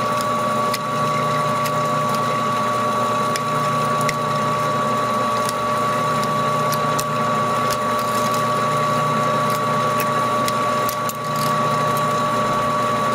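Metal lathe running at low speed, turning a 3D-printed plastic bevel gear set: a steady motor whine and hum, with scattered light clicks from the plastic teeth and a strand of plastic filament in the mesh.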